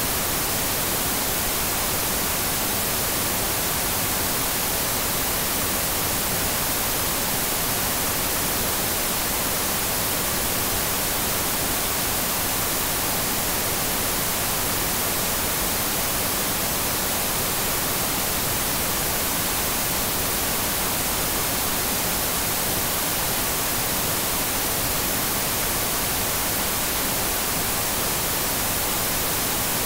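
TV static: a steady, unbroken hiss, brightest in the high treble.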